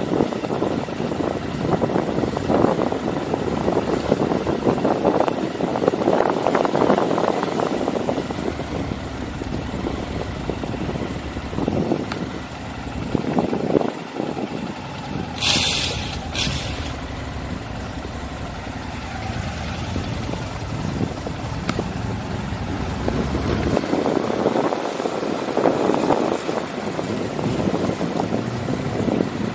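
Motorcycle engine running as the bike rolls slowly along, rising and falling in loudness. A brief hiss comes about halfway through.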